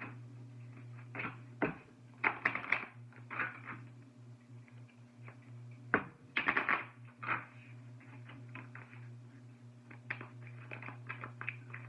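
Oracle cards being shuffled and handled: irregular clusters of clicks and rustles, busiest about two seconds in and again around six seconds, over a steady low hum.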